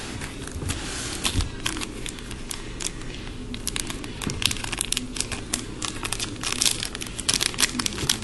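A trading card pack's wrapper crinkling and being torn open by hand, with irregular crackles that grow busier in the second half.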